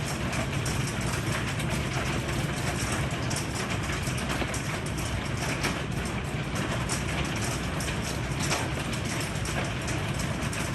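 Heavy rain pouring down steadily, with a dense patter of sharp individual hits and a steady low rumble underneath.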